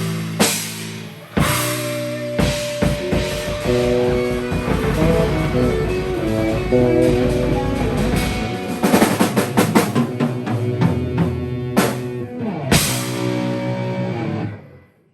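Band improvising: drum kit with loud crashes, over sustained guitar and other pitched notes, the piece having fallen into triple time. It stops abruptly near the end.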